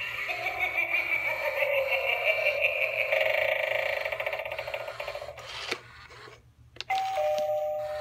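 Animated eyeball Halloween doorbell playing its spooky voice effect for about five seconds. A click follows, then a second of silence and another click, and then a steady two-note ding-dong chime, the higher note sounding first and the lower one joining it.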